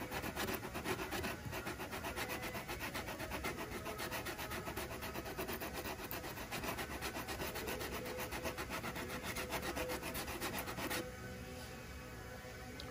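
Hardened body filler being hand-sanded with sandpaper on a sanding block, in rapid back-and-forth scraping strokes. The strokes stop about eleven seconds in, leaving a quieter background and a single click near the end.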